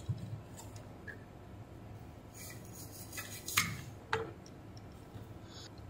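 Light clicks and scrapes of a small circuit board and hand tools being handled on a workbench, with the sharpest click about three and a half seconds in and another about half a second later.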